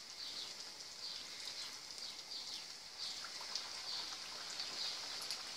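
Hot oil sizzling in a frying pan around two frying pirozhki (dough pies): a steady high hiss with scattered small pops.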